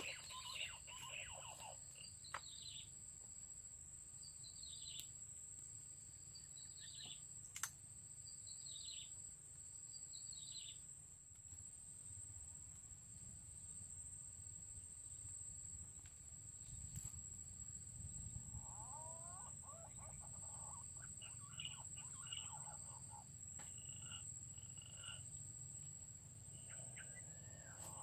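Faint whistled calls, each falling in pitch, repeating every two seconds or so, then softer warbling calls later on. Behind them runs a steady high-pitched insect buzz and a low rumble.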